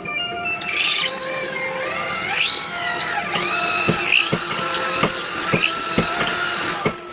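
Power tool working steel: a motor whine that rises and falls in pitch over a hissing, grinding noise, starting about a second in. In the second half, sharp knocks come about twice a second.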